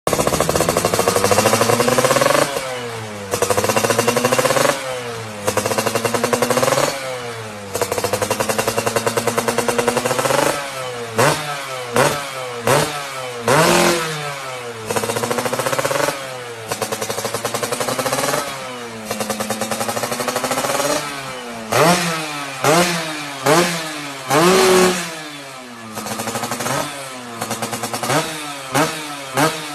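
Yamaha FZR motorcycle's inline-four engine being revved repeatedly on the throttle. The first half holds several longer revs of a second or two each. Later come quick blips in which the pitch climbs sharply and falls back to idle between them.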